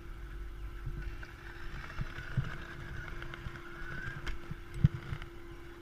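Ski poles and gear handled close to the camera: scattered knocks and rustling, with one sharp thump about five seconds in, over a steady hum.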